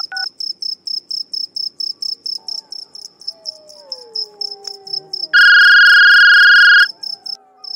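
Crickets chirping in a steady fast pulse, about five chirps a second. About five seconds in, a mobile phone rings loudly with a steady electronic tone for about a second and a half, then starts ringing again at the very end.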